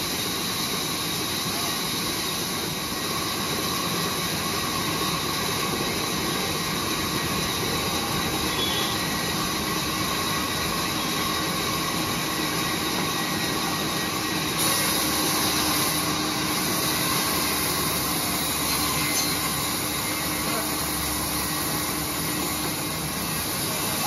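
Large sawmill band saw running and cutting lengthwise through a mango wood slab, a steady, unbroken machine and sawing noise that gets slightly louder about halfway through.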